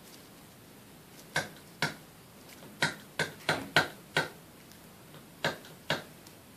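About nine short, sharp clicks at irregular intervals, bunched in the middle of the stretch, over a faint steady room background.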